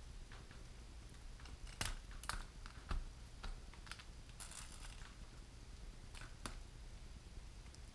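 Small plastic ball links on a Blade 230 S micro helicopter's rotor head being popped off the inner swashplate's ball ends by hand: scattered light clicks and parts handling, with a few sharper snaps about two and three seconds in.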